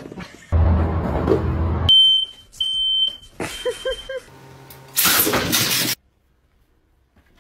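Three long, high electronic beeps like a smoke alarm's, the last one fainter, between noisy stretches: a rushing noise before them, and a loud burst of noise about five seconds in that cuts off suddenly.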